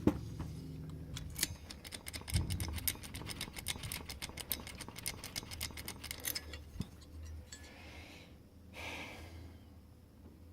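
A knock, then about five seconds of rapid metallic clicking as a key blank is worked back and forth in the Master padlock's keyway to raise impression marks from the pins. A brief scrape follows near the end.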